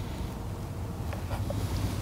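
Low, steady wind rumble on the microphone, with a few faint clicks from handling a portable EV charging cable's control box.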